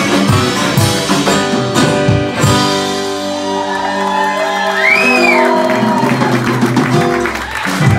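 Live band with acoustic and electric guitars and a drum kit playing the close of a song: drum hits about twice a second for the first couple of seconds, then the drums stop and the guitars hold ringing final chords, with a whoop rising and falling about five seconds in.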